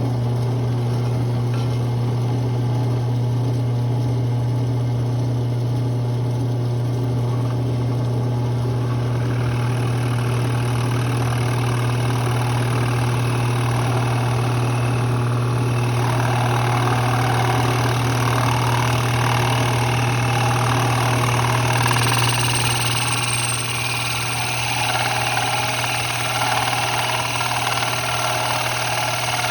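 An electric shop power tool's motor running steadily with a strong, constant hum. From about sixteen seconds a rougher, louder noise of the tool working the wood joins it.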